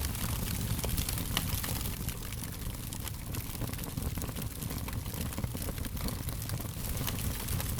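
Wood fire crackling steadily, with frequent small snaps and pops over a low rumble of the burning.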